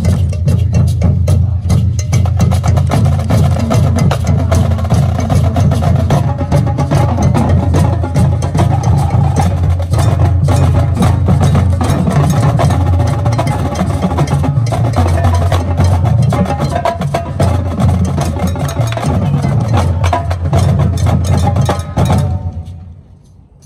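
High school marching band playing loud, with drumline and front-ensemble percussion hits all through it. The band cuts off about 22 seconds in and the sound dies away.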